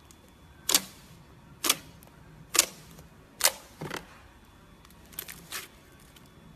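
A series of sharp clicks, about seven, coming at uneven intervals with the loudest in the first four seconds.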